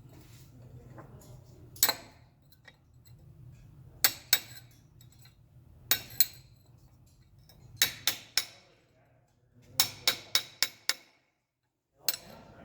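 Hammer striking hard metal, about fifteen sharp clinks with a short ring each, some single and some in quick runs of three to six, typical of knocking investment off a bronze casting.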